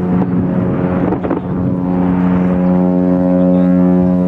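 Cruise ship MSC Virtuosa's horn sounding one long, steady blast as she leaves port. Sharp firework cracks sound at the start and again about a second in.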